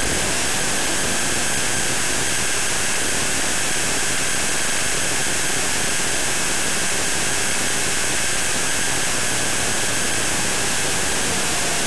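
Evolution Rage 3 sliding mitre saw's motor running: a loud, unchanging rushing whine with a few steady high tones in it, cutting in and out abruptly.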